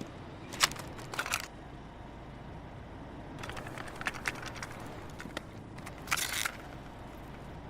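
Quiet gap between songs: faint steady hiss with scattered short clicks and crackles, a few of them in quick clusters.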